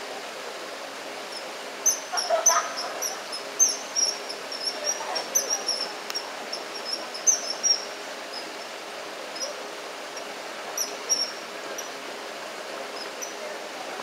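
Common kingfishers calling: a fast run of short, high, shrill notes, thickest in the first half, then a few scattered calls later on.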